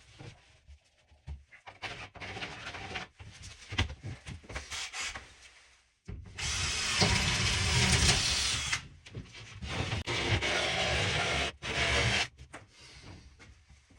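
Knocks and clatter of handling, then about six seconds in a power tool starts suddenly and runs in three bursts, two of about two and a half seconds and a short last one, cutting a circle in a board.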